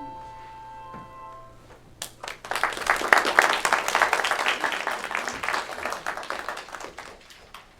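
The last handbell chord rings on and fades out in the first second and a half; then an audience applauds for about five seconds, dying away near the end.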